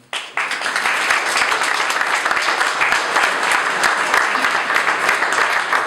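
Audience applauding: many people clapping, starting abruptly and going on steadily.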